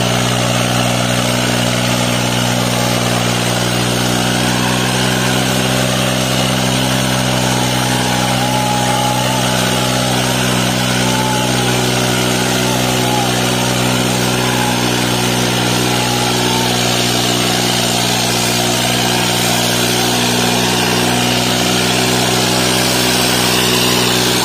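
Diesel tractor engine running steadily at a constant speed.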